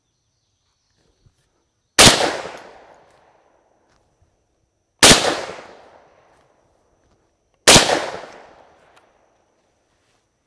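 Three shots from a TriStar Viper G2 .410-bore semi-automatic shotgun, about three seconds apart, each a sharp report that trails off over about a second.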